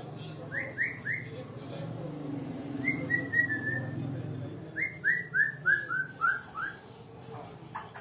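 African grey parrot whistling short notes in three groups: three quick notes, a run of four at a steady pitch, then six stepping down in pitch. A steady low hum runs underneath.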